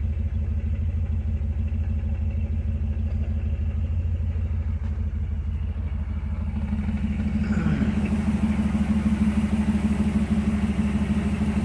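Carbureted car engine idling steadily at about 650 RPM, warmed up; it gets a little louder about two-thirds of the way through.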